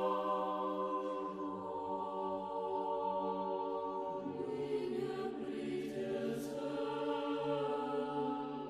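Choir singing a slow chant in long held chords, the harmony shifting to a new chord about halfway through.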